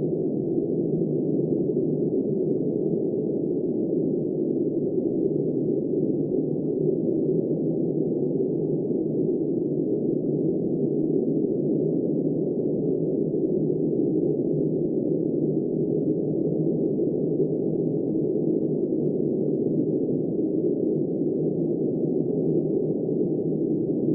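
Steady, muffled rush of wind, low-pitched and without any hiss or gusting, holding at an even level throughout.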